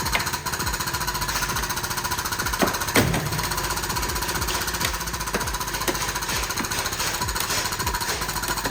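A power tool hammering rapidly and steadily, a continuous mechanical rattle of fast strokes, with a couple of sharper knocks about three seconds in.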